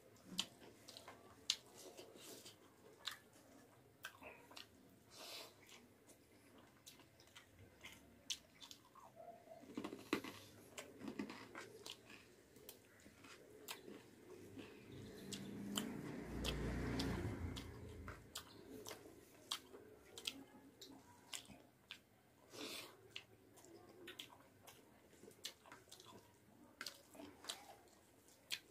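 Close-up chewing and biting of rice with masaura curry, full of sharp, crunchy mouth clicks. A louder, low muffled sound swells about halfway through and fades a few seconds later.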